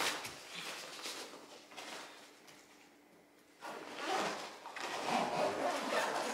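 Rustling and light knocks of toiletries and a bag being handled while packing. A short quiet pause comes about halfway through, then the rustling starts again.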